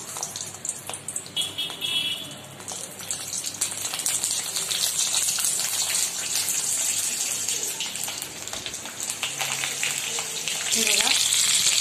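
Stuffed green capsicums sizzling and crackling in hot oil in an iron kadhai as they are set in one by one. The sizzle builds over the first few seconds, then holds steady.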